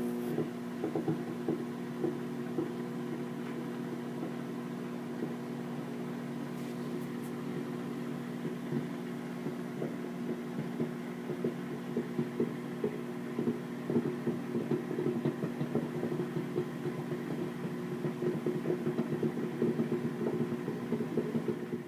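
Microwave oven running: a steady electrical hum, with irregular light crackles that come more often near the end.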